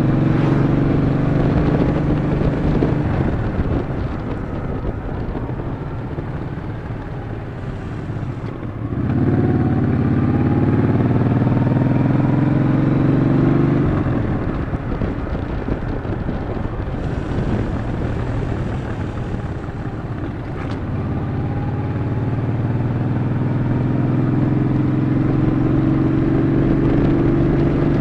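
Yamaha Bolt XV950's air-cooled V-twin engine running under way. It eases off twice, with the throttle opened again about nine seconds in and once more from about twenty-two seconds.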